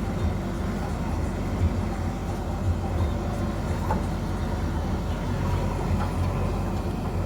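Diesel engine of heavy earthmoving machinery running steadily at a low, even pitch, with a couple of faint knocks partway through.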